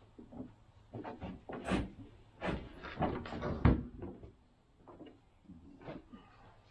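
A run of irregular knocks and clunks of hard objects being handled, the loudest a little past halfway, fainter and sparser near the end.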